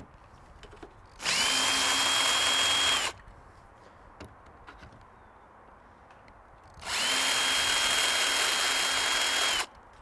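Cordless 18 V drill/driver running in reverse twice, backing out the screws of an old door striker plate: two runs of about two to three seconds, each a whine that rises briefly as it spins up, holds steady, then cuts off.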